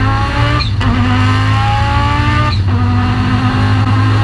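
Turbocharged Audi five-cylinder race engine at full throttle, its revs climbing steadily through the gears. Quick upshifts come about a second in and again past the middle, each with a brief high chirp.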